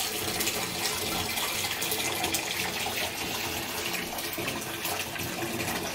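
Bath tap running steadily, water pouring into a bathtub as it fills with bubble bath.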